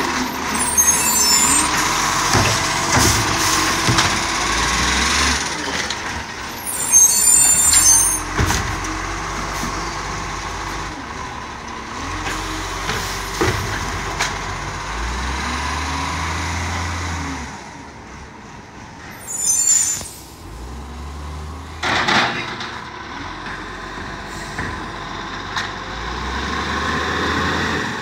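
Side-loader garbage truck's engine running and pulling away down the street, its pitch rising and falling as it drives, with three short hisses of air brakes, near the start, about seven seconds in and about nineteen seconds in. A single sharp knock sounds about twenty-two seconds in.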